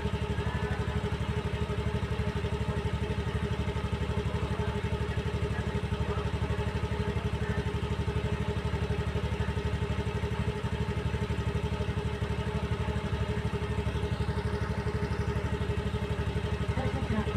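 A vehicle engine idling steadily at an even, unchanging rhythm.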